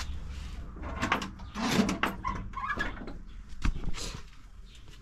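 Knocks and scrapes of a slasher, a long grass-cutting blade, being picked up and handled. Most come in the first two seconds, with a couple more about four seconds in.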